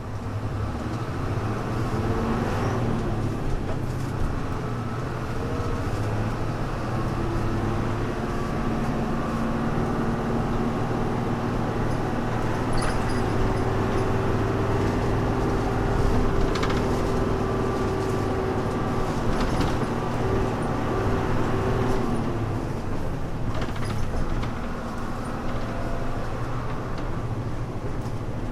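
Hino Blue Ribbon U-HU2MLAA diesel route bus heard from on board while driving, its engine working under load. The engine note climbs early on, then holds a steady whine through the middle before easing off about three quarters of the way through, with scattered rattles. It has the odd noises and muffled tone that the uploader calls typical of early-1990s buses.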